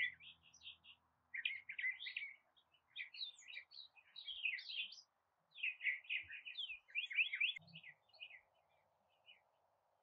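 Wild songbirds singing: quick runs of high chirps and trills in several bursts over the first eight seconds or so, thinning out near the end.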